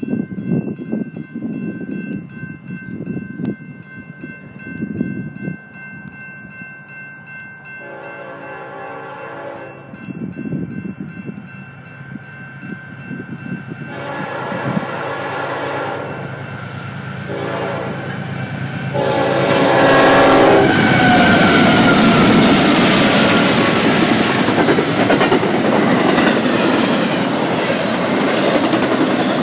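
Approaching BNSF freight's ES44C4 lead locomotive sounding its air horn for the grade crossing: two long blasts, a short one, then a long one as it reaches the crossing. The double-stack intermodal train then passes loudly, its wheels clicking over the rail joints.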